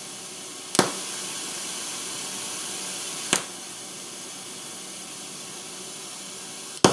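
Pink-noise test signal heard as the loss in 100 m cables: a steady hiss that steps in level at a click about a second in, again past three seconds, and again near the end, as the test box switches between cables. The louder stretches are the loss of the 24-gauge audio snake cable; the quieter, duller stretch is the smaller loss of a 23-gauge Cat7 data cable.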